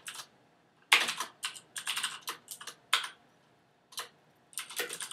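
Typing on a computer keyboard: quick runs of keystrokes with short pauses between them, the loudest run about a second in.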